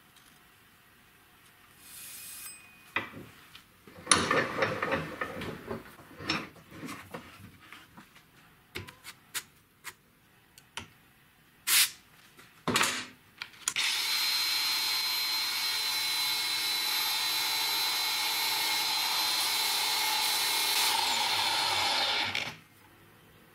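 Scattered handling noises and knocks, then, about 14 seconds in, a Makita cordless angle grinder driving a homemade belt-sander attachment starts and runs steadily with a thin high whine, stopping abruptly after about eight seconds.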